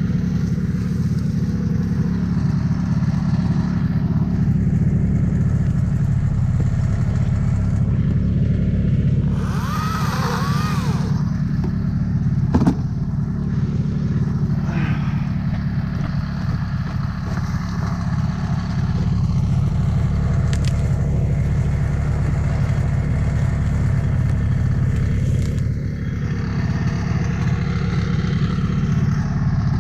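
Yamaha Bravo snowmobile's small two-stroke engine idling steadily. About ten seconds in there is a brief scraping noise, and a single sharp knock follows soon after.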